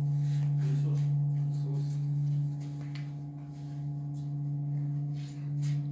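CNC milling machine running as its carriage travels, giving a steady low electric hum; the hum drops quieter about two and a half seconds in and comes back up near the end.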